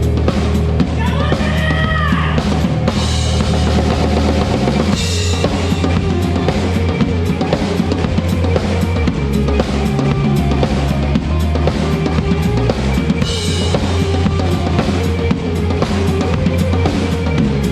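A live band playing a song at a soundcheck, with the drum kit prominent: a steady run of drum hits over held bass notes.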